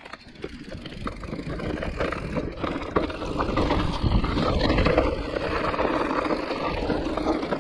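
Mountain-bike riding noise: wind buffeting the microphone and tyres rattling over a rough trail. It builds over the first few seconds as the bike picks up speed, then holds steady.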